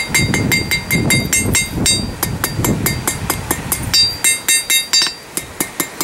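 Blacksmith's hand hammer striking a small forged steel fin held in tongs on an anvil, in a quick steady run of light blows at about four a second, each with a bright metallic ring from the anvil. The blows get lighter near the end.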